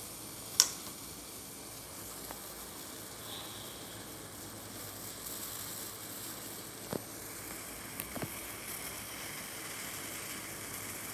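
Milk kashaya (a spiced herbal decoction) heating towards the boil in a steel saucepan over a gas burner: a steady soft hiss with a few small clicks, the sharpest about half a second in.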